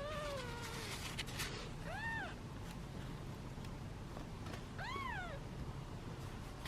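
Young British shorthair kitten meowing three times: high, thin mews that rise and fall in pitch, the first the longest, spaced a couple of seconds apart. These are the impatient meows of a hungry kitten waiting to be fed.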